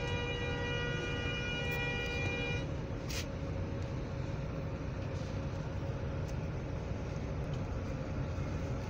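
A vehicle horn sounds one long steady note that cuts off about two and a half seconds in, followed by a brief high chirp, over the steady low rumble of engines and tyres in slow traffic.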